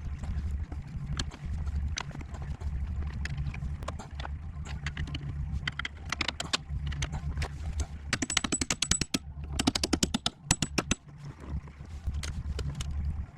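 Metal hand tools clicking and clanking during car repair work, with two runs of rapid, even clicking about eight and ten seconds in, over a steady low hum.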